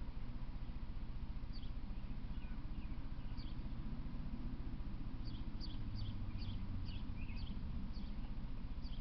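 Small bird chirping in short, high, falling notes, a few spaced out and then a quick run of them from about five seconds in, over a steady low rumble.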